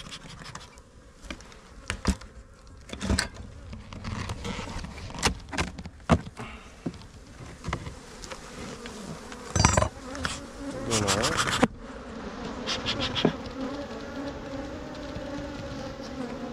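Agitated honeybees buzzing around an opened hive, the hum growing stronger and steadier in the last few seconds. Sharp clicks and knocks come and go throughout as the hive boxes are cracked open and worked.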